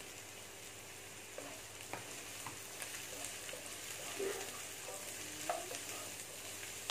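Chopped onion, beans, cabbage and carrot sizzling in hot oil in a non-stick kadai while a spatula stirs them, scraping and tapping against the pan. A louder scrape comes about five and a half seconds in.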